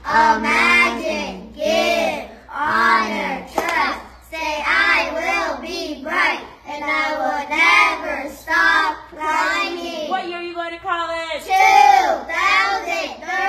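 A small group of children chanting a pledge together in unison, in a sing-song rhythm of short phrases.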